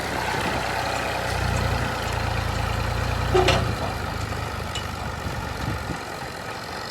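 Old combine harvester's diesel engine running with a steady low drone that swells in the middle and eases off near the end, with a single sharp metallic clank about three and a half seconds in.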